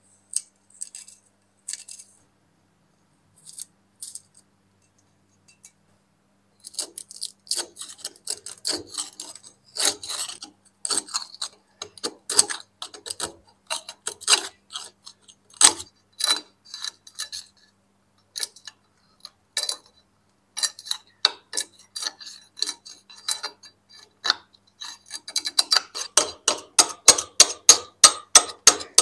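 Metal scraper blade scraping flaking rust scale off a heavily rusted antique axe head, in short scratchy strokes. The first seconds hold only a few light handling taps. Near the end the strokes turn fast and regular, about four a second, and grow louder.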